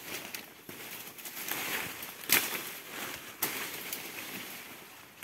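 Leaves and branches rustling and twigs crackling as people push through dense forest undergrowth, with two louder snaps, one just after two seconds in and another about a second later.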